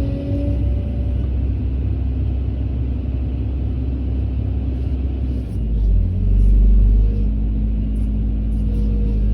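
Heavy diesel engine of construction machinery running with a low rumble, its pitch shifting a little past five seconds in and swelling louder for about a second around six seconds in.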